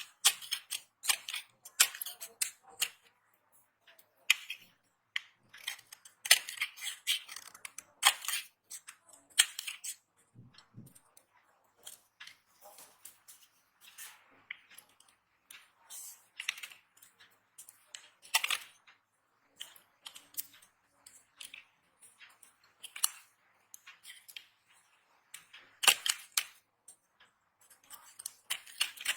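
Dry soap being cut and crushed: crisp crackling crunches in irregular clusters, dense in the first third and sparser later with short quiet gaps, and a dull low thud about ten seconds in.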